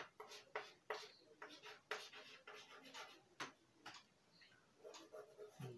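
Chalk writing on a chalkboard: a faint, irregular run of short taps and scratches as a word is written stroke by stroke.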